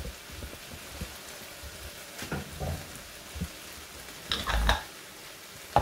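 Turkey mince and spices sizzling steadily in a frying pan on a gas hob, with a few scrapes and knocks against the pan, the loudest about four and a half seconds in.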